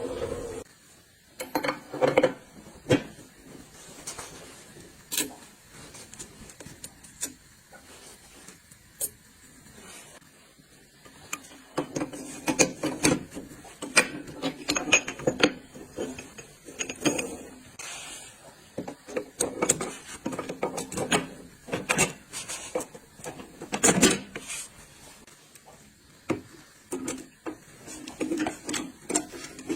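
Metal transmission parts being handled and fitted by hand: irregular clicks, knocks and scraping, busier in the second half.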